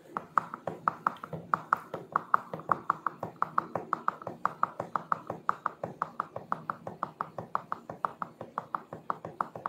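Rapid, fairly even clicking of keys being typed, about five to six clicks a second, starting abruptly.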